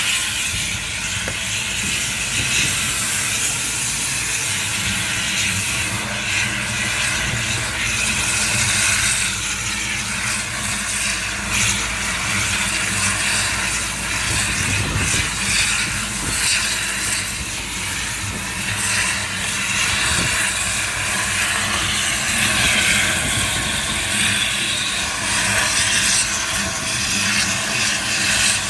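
Heavy-duty oxy-fuel cutting torch burning through a thick steel shaft and casing: a loud, steady hiss of the cutting jet and flame, with a low rumble underneath.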